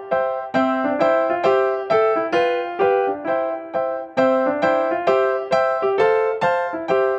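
Background music: a piano melody of evenly spaced struck notes, each dying away, in a steady, gentle rhythm.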